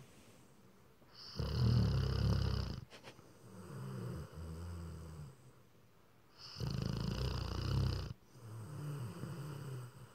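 A sleeping Rottweiler–husky mix dog snoring: two loud snores about five seconds apart, each followed by a quieter, lower snore.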